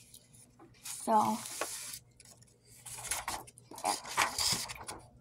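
A sheet of paper rustling in a run of short bursts as it is picked up off the desk and held up.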